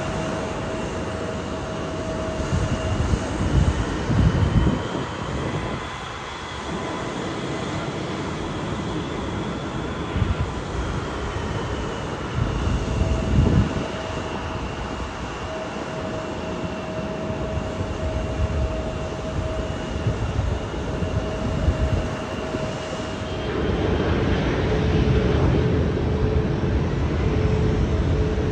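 Jet airliner engines running: a steady rushing roar with a high whine that rises and falls in pitch, growing louder near the end.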